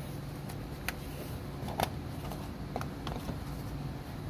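Scattered light clicks and taps of seat belt hardware and plastic trim being handled, about five in four seconds, over a low steady hum.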